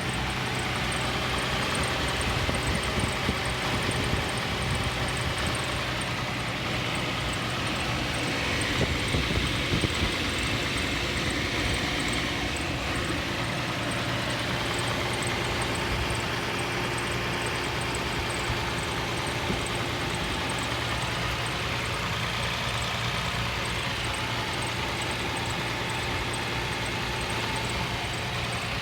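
2nd-generation Toyota Tacoma engine idling on a cold start, with a steady, fast, regular ticking over the engine hum. The tick is heard only in the first minutes of a cold start below freezing, and its cause is unknown.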